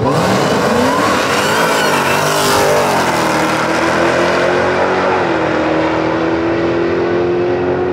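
Dodge Challenger launching at wide-open throttle, its engine note climbing hard and then dropping at upshifts about three and five seconds in, before holding steady as the car pulls away down the track.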